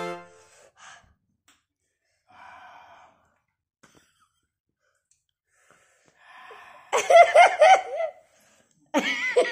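A man's loud vocal outbursts with wavering pitch, not words, twice: about seven and about nine seconds in. Before them come faint breathy noises, and the end of a music cue cuts off just at the start.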